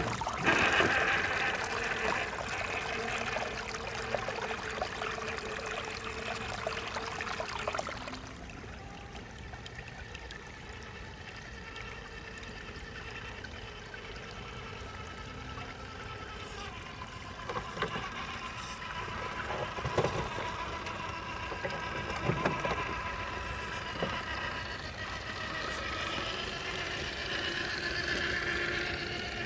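Water trickling and flowing, with the steady whine of the Traxxas TRX-4 RC truck's electric motor. The sound is louder for the first eight seconds, then drops, with a few knocks later on.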